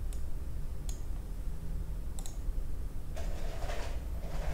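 Three mouse clicks, then about three seconds in a LEGO train starts moving: its motor running and its wheels rolling along plastic track.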